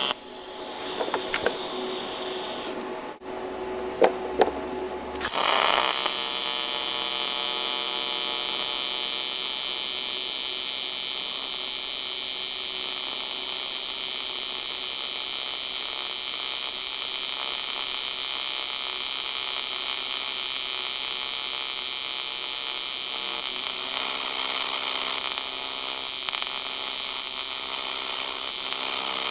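AC TIG welding arc on aluminum from a Longevity Tigweld 200SX welder: a steady buzz. About three seconds in the arc breaks off for a couple of seconds, with two sharp clicks, then is struck again and runs steadily.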